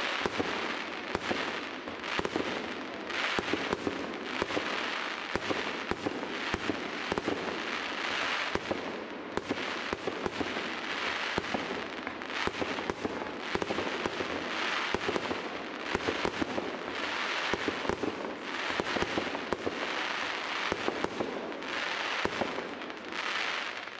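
Fireworks display: a dense, continuous crackling with many sharp bangs going off in quick succession, dying down just before the end.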